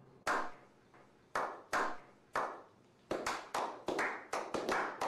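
A slow clap by a small group. Single hand claps come about a second apart, each with a short echo, then more hands join from about three seconds in and the clapping quickens.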